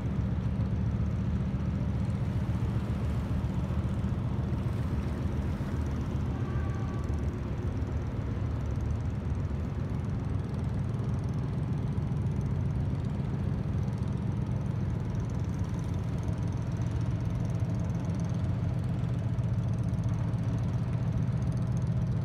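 Steady low rumble of a vessel's diesel engine running at constant speed.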